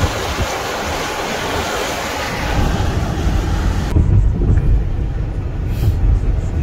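Car driving on a wet, icy road: a steady hiss of tyres and air with a low rumble building under it. About four seconds in the hiss cuts off abruptly, leaving the low rumble of road noise heard inside the car's cabin.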